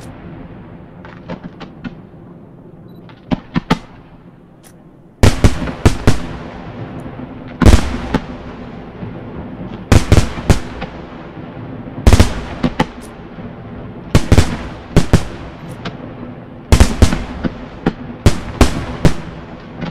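Aerial firework shells bursting: a few scattered small pops for the first five seconds, then a sudden run of loud booms, often several in quick succession, each trailing off briefly.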